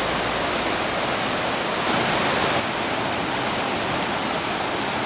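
Whitewater rapids of a canoe slalom course rushing, a steady full hiss of churning water. It drops slightly in level about two and a half seconds in.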